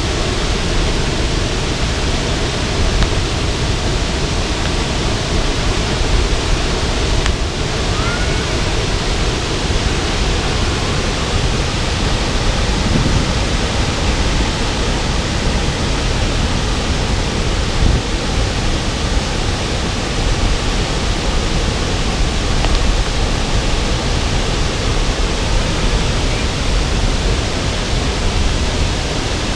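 A 15-metre waterfall, its water falling in a loud, steady rush of noise.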